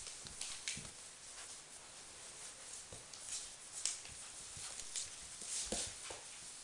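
Newspaper rustling and crinkling in short, irregular scratches as a Border Collie puppy wriggles on its back on it.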